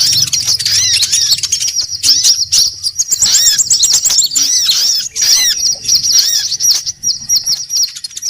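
A dense, busy chorus of small songbirds chirping and twittering, many high notes overlapping in quick succession with a fast trill partway through: a mixed bird-lure recording of several species calling at once. A faint low hum runs underneath for most of it.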